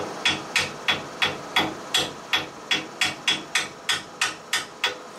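Repeated sharp taps on a pin punch, about three a second, about sixteen in all, driving the retaining pins out of a self-piercing riveter's rivet-catcher and guidebush assembly. The taps stop just before the end.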